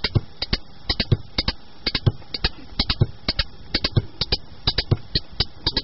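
Percussion playing on without singing: a steady pattern of sharp, dry strokes, about five a second, with a deeper drum beat about once a second.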